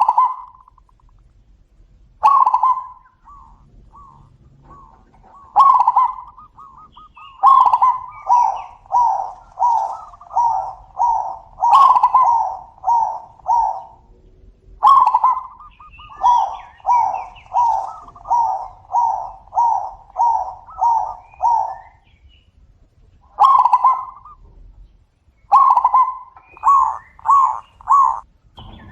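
Zebra doves (perkutut) cooing back and forth: bouts of quick, staccato coos repeated about twice a second, with short pauses between bouts.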